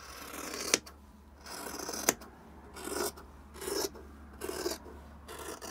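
Scissors cutting through a sewn pair of quilting-fabric squares along the diagonal: about six rasping cuts in a row, a few ending in a sharp snip as the blades close.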